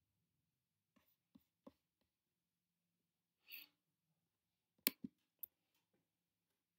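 Near silence broken by soft computer mouse clicks: a few faint ones about a second in, then a sharper group of three about five seconds in, with a brief soft hiss between them.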